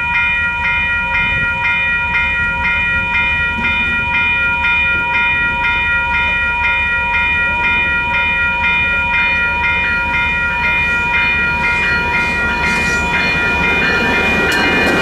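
WCH Type 4 electronic railroad-crossing bell ringing in rapid, even strokes, each a bright ringing tone. Near the end the rumble of an approaching passenger train grows louder beneath it.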